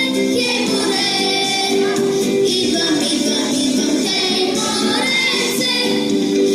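Children singing a pop song together over an instrumental backing track.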